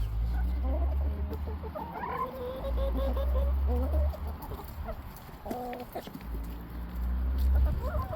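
Chickens clucking, with one drawn-out call about two to four seconds in. A low rumble comes and goes underneath.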